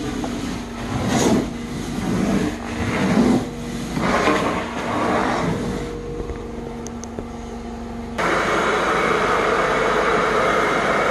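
A carpet cleaning machine runs with a steady hum while its head is pushed back and forth over carpet, making a swoosh about once a second. From about eight seconds a louder, even suction hiss takes over.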